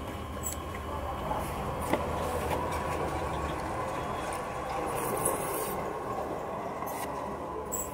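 A steady background rumble that swells through the middle and eases off near the end, with a couple of short clicks.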